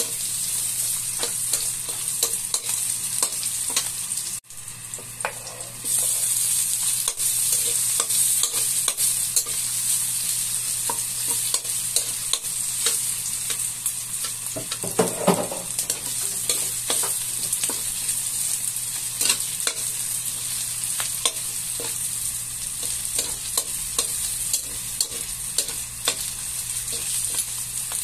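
Chicken, garlic and onion sizzling in hot oil in a metal wok, with a metal spatula scraping and clicking against the pan as it stirs. The sizzle drops away briefly about four seconds in, then comes back louder.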